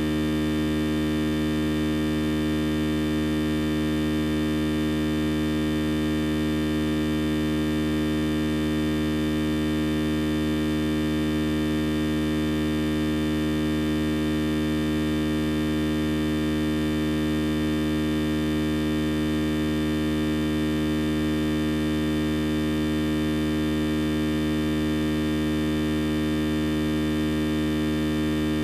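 A steady electrical hum with many overtones, holding one unchanging pitch and level throughout.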